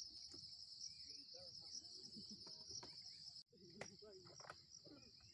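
Faint insect chorus: a steady, high-pitched, slightly pulsing trill, with scattered soft chirps beneath it. It drops out for an instant about three and a half seconds in, then carries on.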